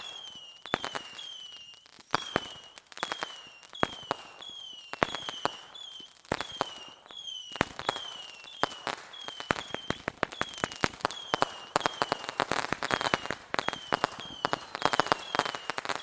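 Fireworks going off: a dense string of sharp crackling pops that thickens and grows louder toward the end. Over it runs a short, high, falling whistle that repeats about once every 0.7 seconds.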